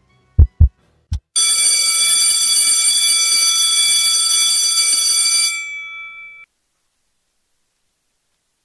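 A few heavy heartbeat-like thumps, then a bell ringing loudly and steadily for about four seconds before it dies away and cuts off.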